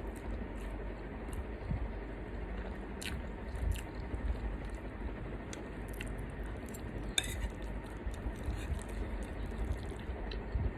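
Someone eating: faint chewing and a few light clicks and taps on a dish, over a steady low hum.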